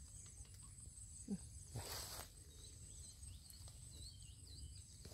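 Faint, steady high-pitched insect trilling, with a brief rustling scrape about two seconds in.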